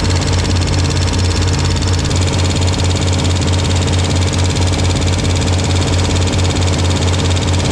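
Chevrolet K1500 pickup engine idling steadily and loud, just after a home valve adjustment; the owner is listening for a ticking noise that he hopes is only loose rockers.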